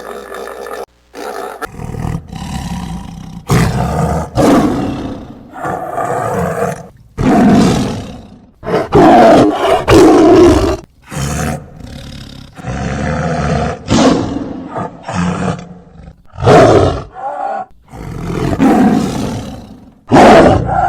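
A large wild animal roaring again and again, in a long series of loud calls each about a second long with short gaps between them.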